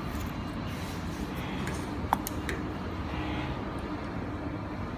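Steady low machine hum of an industrial belt printer running, with a few light clicks and taps about two seconds in.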